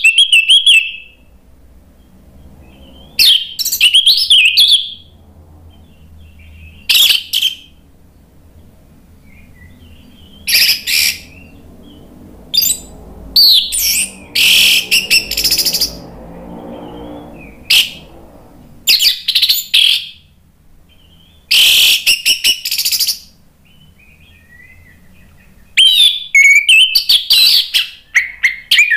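Orange-headed thrush singing loudly in full song: rapid, warbling high-pitched phrases delivered in bursts every few seconds, with short pauses between them. A faint low hum sits underneath.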